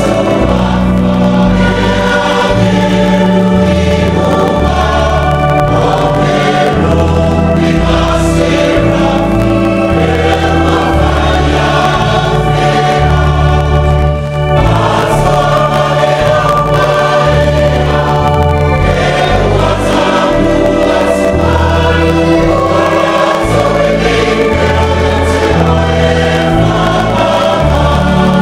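Samoan church congregation of men and women singing a hymn together in parts, in long held chords. The singing dips briefly about halfway through.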